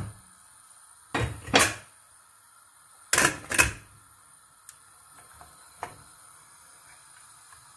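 Stainless-steel pressure cooker being closed: a couple of knocks about a second in, then two loud metallic clanks just after three seconds as the lid is set on the pot, followed by a few light clicks as the lid is worked into place.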